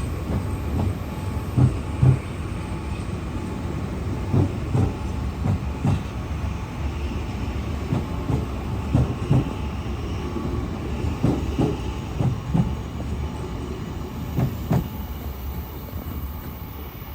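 The Royal Express tourist train pulling out, its wheels knocking irregularly over rail joints above a steady low rumble.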